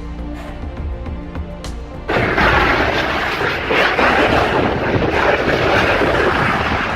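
Background music, then about two seconds in a sudden, loud, steady rushing noise cuts in and carries on.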